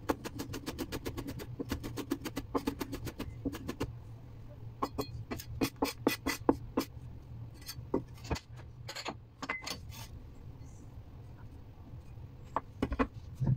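Cleaver mincing garlic on a bamboo cutting board: fast, even chopping knocks, several a second, for the first four seconds or so, then slower, scattered chops and taps.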